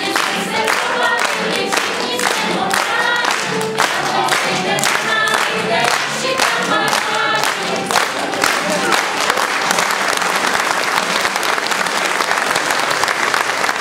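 A group of voices singing a song together, with hand-clapping in time at about two claps a second. About nine seconds in, the song ends and steady applause takes over.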